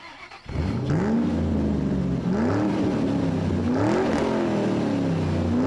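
2016 Kia Soul's four-cylinder engine running rough with cylinder 2 misfiring, its speed rising and falling in repeated swells about every second and a half. Cylinder 2's fuel injector is getting no pulse: the scan tool reads its injection time as zero.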